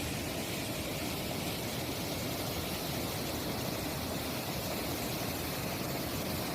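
Steady rushing of a waterfall's falling water, an even noise with no changes.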